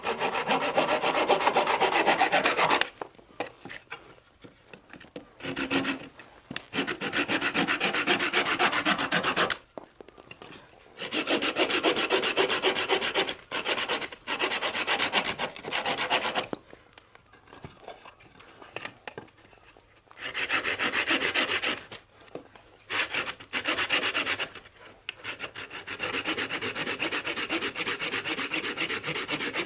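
Curved pruning saw cutting through small branches held against a log: rapid back-and-forth rasping strokes in spells of a few seconds each, with short pauses as each piece comes off and the branch is repositioned.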